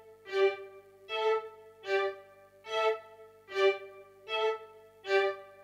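Sampled violin instrument sounding single notes one at a time, about one every 0.8 s, alternating between two nearby pitches. Each note is triggered by a key press on a MIDI keyboard during step input in Logic Pro.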